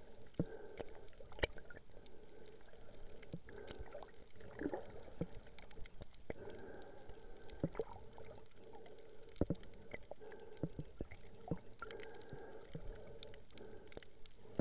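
Underwater sound picked up by a diver's camera: many irregular sharp clicks and crackles over a continuous low hum.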